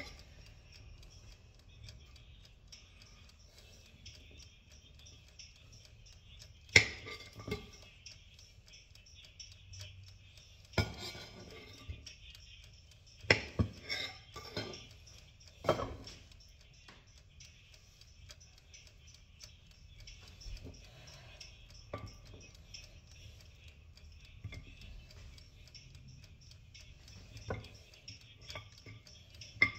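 Scattered clicks, knocks and clatter of kitchen utensils and dishes as a kebab is assembled, with ribs, sauce and lettuce going onto the chips. The clicks are loudest about seven seconds in and again between about 13 and 16 seconds in, over a faint steady high-pitched background.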